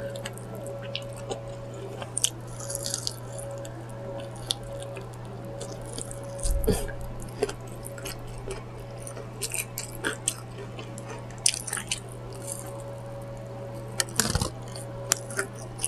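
A person chewing and biting into fried chicken close to the microphone: scattered short wet mouth clicks and crackles, over a steady low hum.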